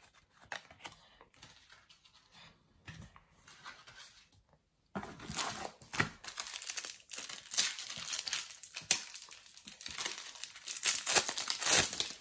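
A Topps Match Attax trading-card packet's foil wrapper being torn open and crinkled. A run of sharp crackling and tearing starts about five seconds in, after a few faint handling clicks.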